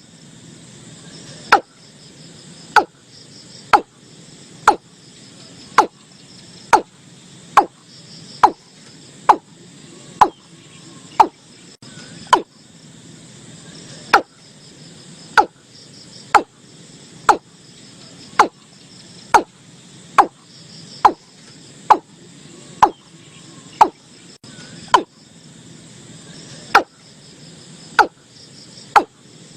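Watercock calling: a short, sharp, falling note repeated evenly about once a second, over insects chirring steadily in the background.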